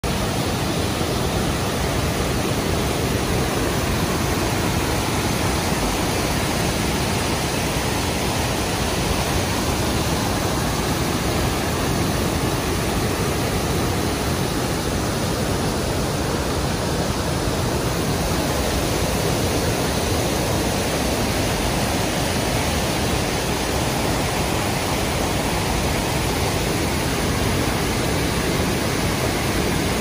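Stream rapids and a waterfall: a steady, full rush of white water pouring over rocks.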